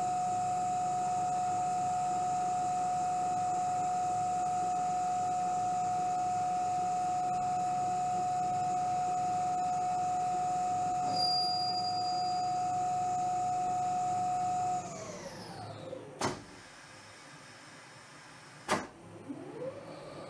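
CNC-converted South Bend lathe running under flowing coolant, with a steady high whine from its drive over the hiss of the coolant spray. About fifteen seconds in, the whine glides down in pitch as the spindle winds down. Two brief sharp sounds follow, and near the end a tone rises again as the machine speeds back up.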